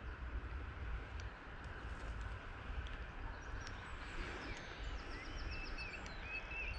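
Faint outdoor ambience: steady wind rumble on the microphone under a soft hiss, with a bird chirping a few short calls in the second half.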